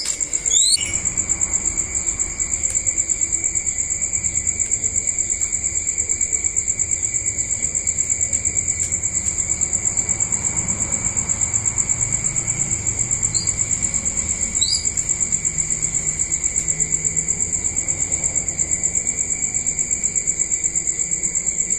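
Crickets chirping in a continuous, fast-pulsing night chorus. A few short rising chirps cut through it: one about half a second in and two more a little past the middle.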